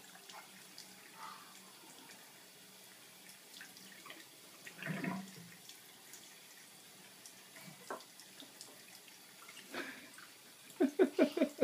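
A thin stream of tap water running from a faucet extender into a sink basin, faint and steady, and into a plastic cup near the end. A few short vocal sounds break in, one about five seconds in and a quick run of them near the end, the loudest part.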